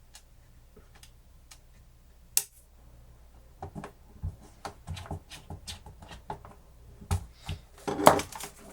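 Small plastic clicks and knocks from handling a reassembled portable cassette player: one sharp click about two and a half seconds in, then a busier run of clicks and taps from about three and a half seconds on, louder near the end.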